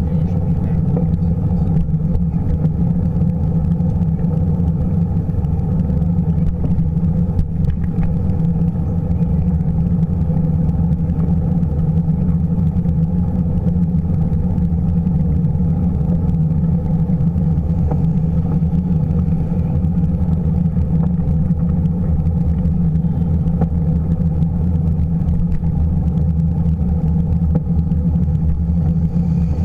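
Steady low rumble of wind and road vibration from a bicycle riding along a paved path, with no sharp sounds standing out.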